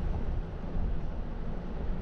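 Wind buffeting the microphone over the low road rumble of a slowly moving car, an even, fluctuating low rumble.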